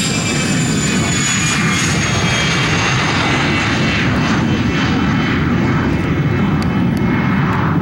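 Cessna Citation business jet's twin turbofan engines at takeoff power as it lifts off and climbs away: a loud, steady roar with a high whine that slides down in pitch over the first couple of seconds.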